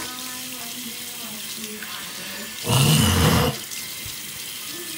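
Water running steadily from a tap, with faint background voices. About halfway through comes one loud, rough burst lasting under a second.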